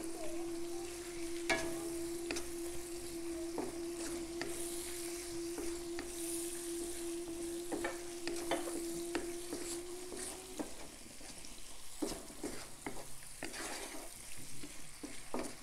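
Prawns, sliced onion and turmeric frying in oil in a nonstick wok, sizzling, while a wooden spatula stirs and scrapes against the pan. A steady hum runs underneath and stops about ten seconds in.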